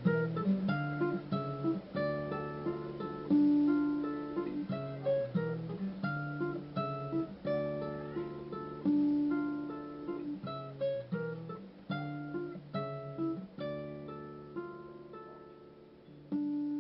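Solo acoustic guitar music with plucked notes and strummed chords in a steady rhythm, gradually getting quieter. A last chord is struck near the end and left to ring out and fade.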